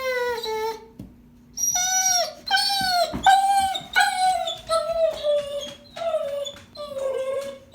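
Dog howling: a long held note that trails off just after the start, then a string of shorter howls, about one or two a second, each sliding down in pitch.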